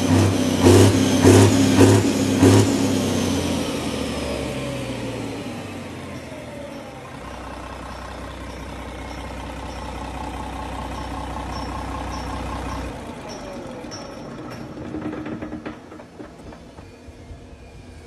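Yanmar marine diesel engine running at high revs with a beat about twice a second. It is then throttled back, its pitch falling over a few seconds to a steady low idle. About thirteen seconds in, its low hum drops away.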